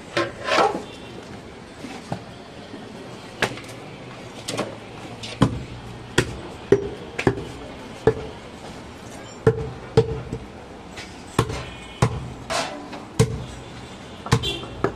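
A butcher's knife striking goat meat and a wooden chopping block: about twenty sharp, irregularly spaced knocks, some with a brief ring after them.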